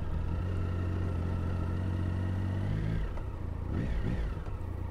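Triumph Tiger 1050's three-cylinder engine running with a steady low note, which breaks off about three seconds in and then dips and rises as the throttle changes.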